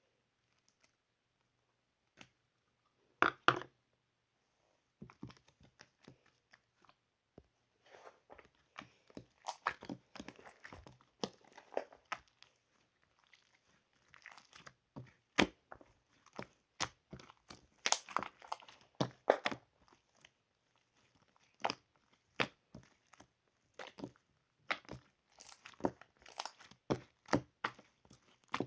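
Strawberry bingsu being eaten: spoon scooping and scraping the shaved ice, with crunchy bites, in short irregular bursts and clicks.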